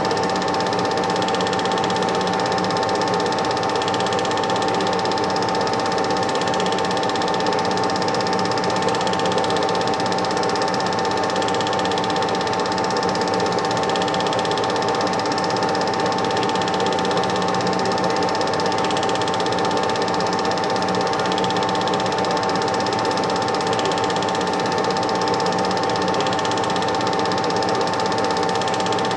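Super 8 film projector running: a steady mechanical whir with a constant humming tone and a faint swell that repeats about every second and a half.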